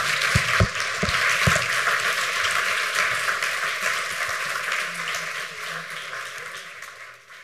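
Audience applauding, with a few low thumps in the first second and a half; the clapping fades over the last few seconds.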